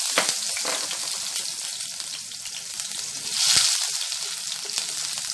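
Chopped ginger and green chillies sizzling and crackling in hot oil in a stainless-steel kadai, stirred with a metal spatula. The sizzle swells about three and a half seconds in, with a knock of the spatula against the pan.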